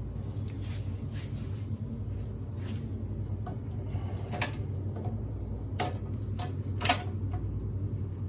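A few sharp metallic clicks and taps from hand work on an air-conditioning condensing unit, the loudest about four and a half, six and seven seconds in, over a steady low mechanical hum.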